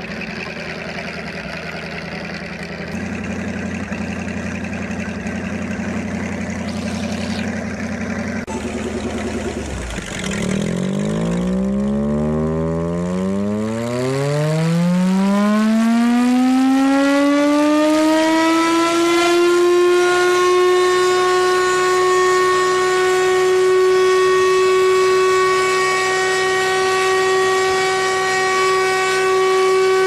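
Chrysler air raid siren's Hemi V8 engine running, picking up speed about three seconds in. About ten seconds in the siren rotor is engaged, and its tone sweeps up in pitch over several seconds, then settles on a steady, louder tone with strong overtones.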